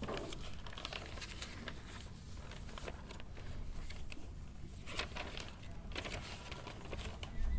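Sheets of paper being handled and flipped close to the microphone: a string of short, irregular rustles and crackles over a low room hum.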